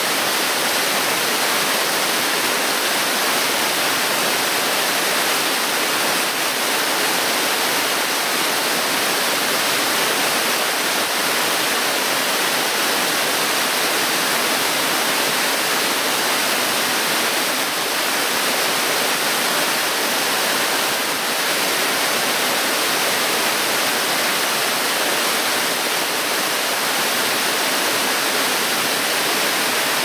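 Waterfall cascading in many streams over a mossy rock face and splashing into a shallow rocky pool. It makes a steady, unbroken rush of white water, bright and hissy, with little deep rumble.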